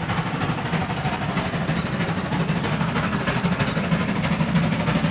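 Steam locomotive running, a steady dense mechanical noise without pauses.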